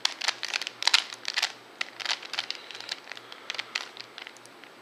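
A 3x3 puzzle cube's plastic layers being turned quickly by hand: a rapid run of clicks and clacks that thins out near the end.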